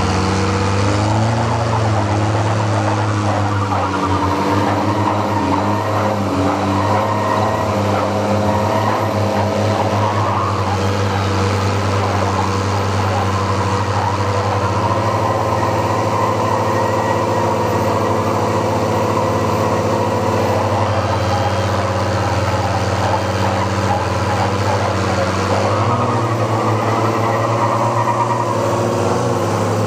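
Chevrolet square-body pickup's engine held at steady high revs under heavy load, straining in a truck tug-of-war pull.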